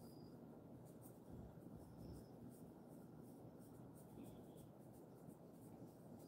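Faint scratchy rustling of fingers rubbing and massaging a Jindo-mix dog's fur, in short repeated strokes. A faint high chirp sounds a few times behind it.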